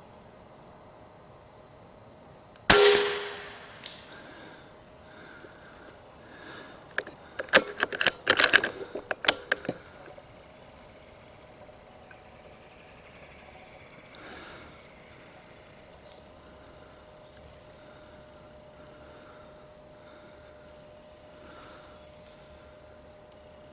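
A Sumatra .22 pre-charged pneumatic air rifle fires a single pellet shot about three seconds in, loud and sharp with a short ring-off, because the microphone sits on top of the rifle. A few seconds later comes a quick cluster of sharp clicks and knocks for about three seconds, over a steady chirring of insects.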